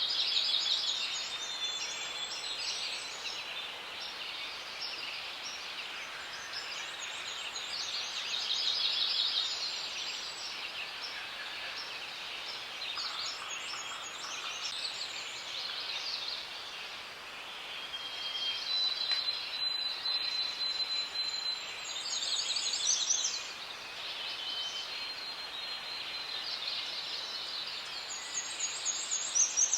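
Forest ambience: several birds singing and calling in turn, with rapid high trills and a few long, level whistles, over a steady high hiss.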